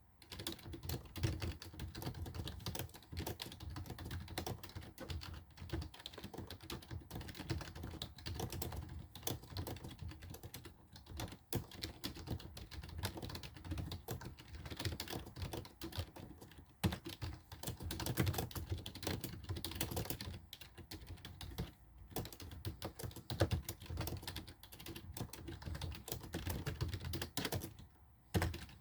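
Steady, fast typing on a basic computer keyboard: a dense run of key clicks, with a short pause near the end.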